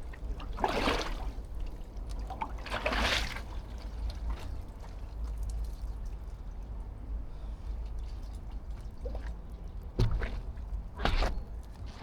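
Water trickling and sloshing in an ice hole in a frozen lake, with two short swishes, one about a second in and one about three seconds in. A sharp knock comes about ten seconds in.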